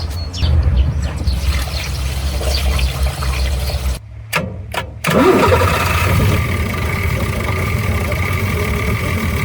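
Mercedes Unimog 416's OM352 six-cylinder diesel engine starting: a low rumble, a brief break, then the engine catches with a rising pitch about five seconds in and settles into steady running.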